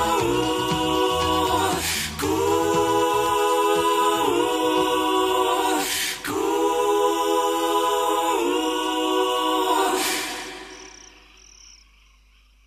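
Outro music of a choir singing held a cappella chords, changing about every two seconds, fading out over the last couple of seconds.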